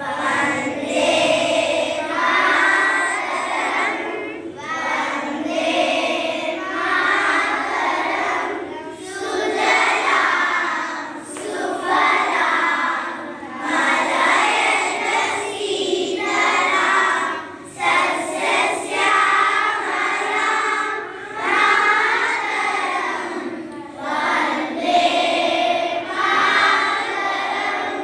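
A group of schoolchildren singing a prayer song together in unison, in short phrases with brief pauses between them.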